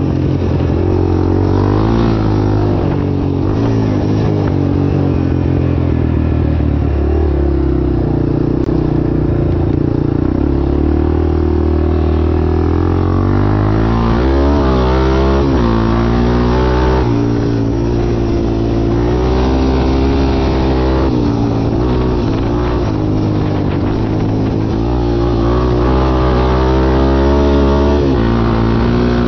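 Off-road motorcycle engines running, their pitch rising and falling as they rev.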